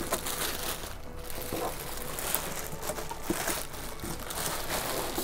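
Plastic packaging wrap crinkling and rustling as it is handled and pulled from around a heat press, with a few light knocks.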